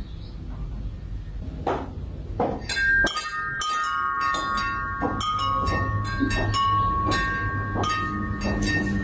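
Hanging metal wind chime clinking and ringing, struck irregularly many times from about three seconds in, its several pitched tones ringing on and overlapping.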